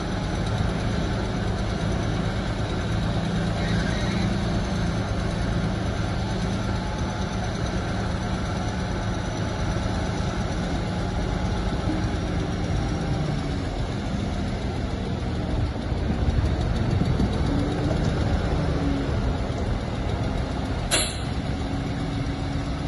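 Heavy diesel engine of earthmoving machinery running steadily, with one sharp click near the end.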